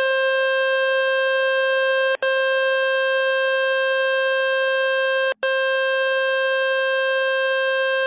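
Speaker-cleaning tone from the Fix My Speaker website, a loud, steady, buzzy electronic tone played to shake water and dust out of the phone's speaker. It cuts out for a split second twice, about two seconds in and about five and a half seconds in.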